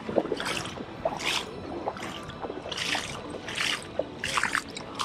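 Water splashing and sloshing in repeated short bursts, about one to two a second at an uneven pace.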